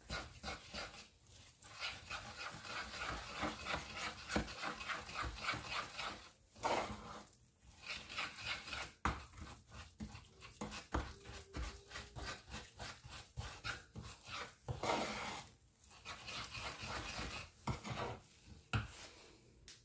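A thick bsissa paste being mixed in a wooden bowl by hand and with a spoon: rhythmic rubbing and scraping strokes, several a second, with a few short pauses.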